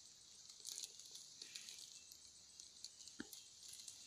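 Faint rustling and crinkling of bags being handled, with one sharp click about three seconds in, over a steady high hiss.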